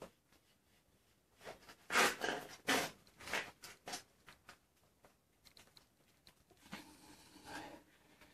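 A sharp knife scraping and cutting old rubber bush out of the steel eye of a radius arm, in short irregular strokes, loudest between about two and four seconds in, then fainter.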